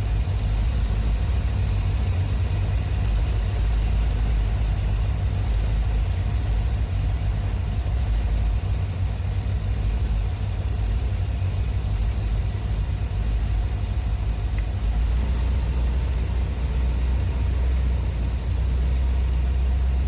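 1981 Corvette's 350 V8 idling steadily while its carburetor is being tuned; the mixture is still rich. The low rumble grows a little stronger about fifteen seconds in.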